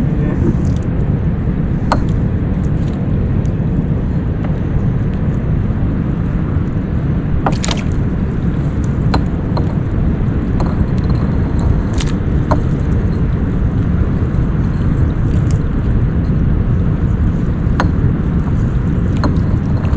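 Steady low rumbling noise with a few short sharp clicks and knocks scattered through it.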